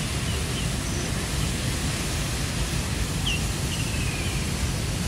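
Water pouring down an artificial rock waterfall: a steady, even rushing noise.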